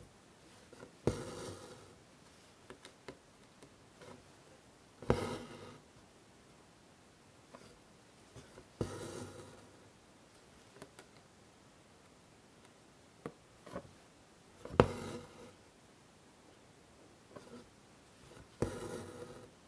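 An embroidery needle pushed through fabric stretched tight in a hoop and the thread pulled through after it, while working satin stitch: five stitches about four seconds apart, each a sharp pop followed by a short rasp of thread through the cloth, with small ticks between.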